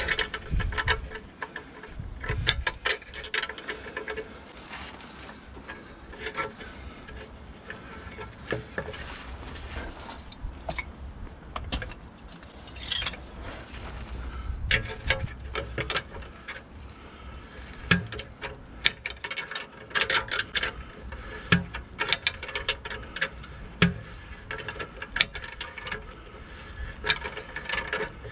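Steel spanners clicking and clinking on the nuts of a threaded-rod bush puller as they are turned and re-seated, tightening it to draw out a car's rear lower suspension bush. A string of irregular sharp metal clicks, several a second.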